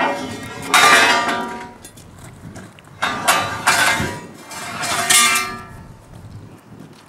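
Lengths of steel rail clanging as they are handled, each knock ringing on briefly. There are about half a dozen clangs, the loudest about a second in, then a cluster of three a few seconds later and a last one near the end.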